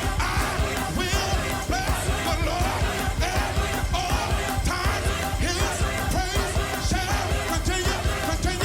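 Gospel choir singing full-voiced over a live band, with a steady driving beat and heavy bass.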